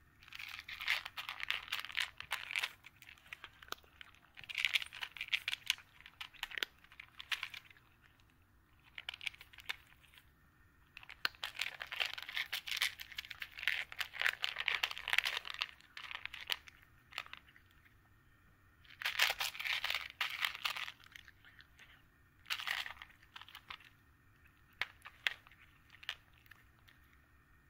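A cat crunching dry kibble close to the microphone: bursts of rapid crackly chewing, each a second or two long, with short pauses between mouthfuls.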